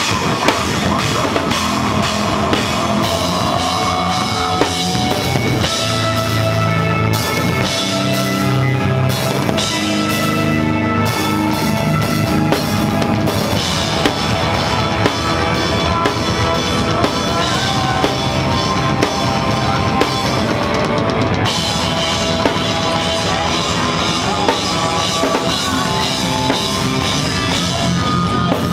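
Metal band playing: drum kit under electric guitars.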